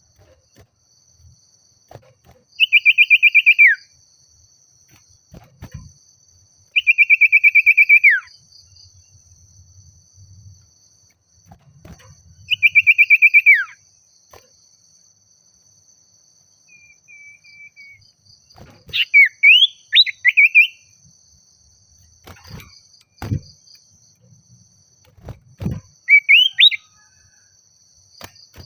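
Common iora (sirtu/cipoh) singing its challenge song. It gives three long trilled whistles, each ending in a downward slide, then two bursts of quick rising whistled notes in the second half.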